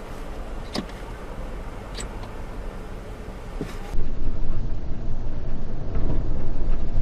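Car cabin noise: a stationary car idling quietly with a couple of brief sharp ticks. About four seconds in it turns to louder, steady engine and road noise from the car driving.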